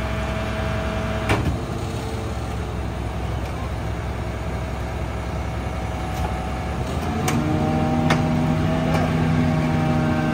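New Way rear loader garbage truck running its packer: the engine and hydraulics run steadily, then about seven seconds in the engine speeds up with a steady hydraulic whine as the packing cycle works. There are a few sharp knocks, one early and two later.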